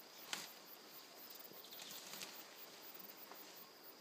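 Mountain gorilla feeding in dense foliage: faint rustling and crackling of leaves and stems, with one sharp snap about a third of a second in. A steady high insect hum runs underneath.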